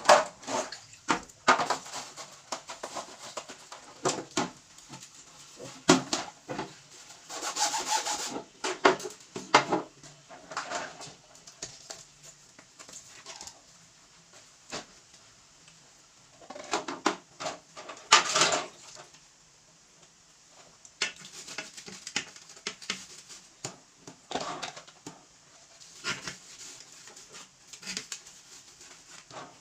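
Irregular scrubbing and rubbing with scattered sharp knocks and clatters: a small refrigerator being wiped and cleaned by hand, with quieter pauses between spells of work.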